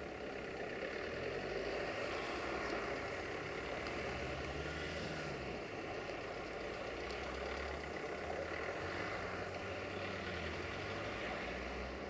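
Diesel engine of an approaching GM diesel-electric locomotive, heard from a distance as a low, steady rumble.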